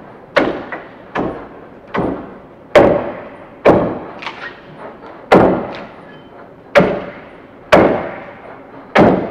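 Axe blade biting into the side of a log over and over as it is hand-hewn flat: about ten sharp chops at a steady pace of roughly one a second.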